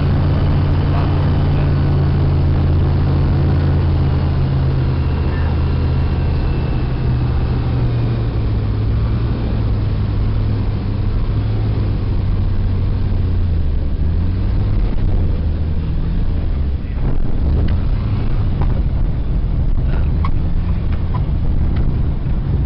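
Zenith STOL CH 701 light aircraft's engine and propeller heard from inside the cockpit, a loud steady drone on approach. About two-thirds through, the note eases lower and turns uneven as power comes back for the landing, with a few knocks near the end as the plane rolls along the dirt strip.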